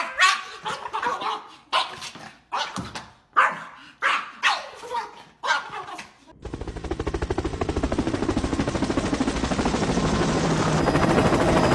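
Yorkshire terrier barking repeatedly in sharp single barks. About six seconds in the barking stops and a fast, even rattling pulse takes over, growing slightly louder.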